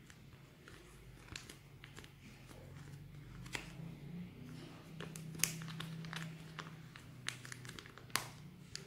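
Plastic sachet of sweetened condensed milk crinkling as it is squeezed and wrung out by hand, in scattered sharp crackles. The loudest crackles come about five and a half seconds in and again near the end.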